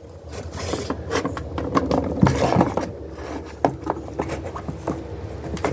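Kittens scuffling as they wrestle, their paws and claws making irregular light taps and scrapes on a hard surface.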